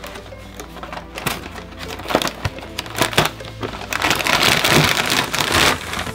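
Background music under crackling and crunching from snacks and their packaging, many short sharp crackles with a dense run of them about four seconds in.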